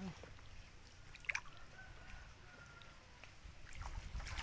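Quiet water sloshing and dripping as a man wades chest-deep in a river, hauling in a net line, with one short sharp sound about a second in and heavier sloshing near the end.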